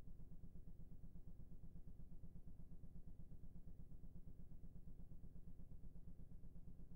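Faint low hum with a fast, even flutter.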